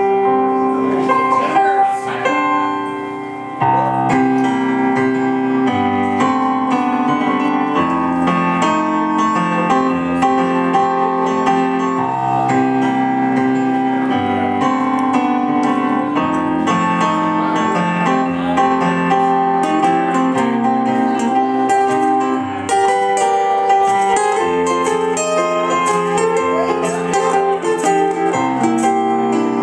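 Electric stage piano and acoustic guitar playing together live, without singing: sustained piano chords over strummed and picked guitar, chords changing every second or so. The music eases off briefly about two seconds in, then comes back in full.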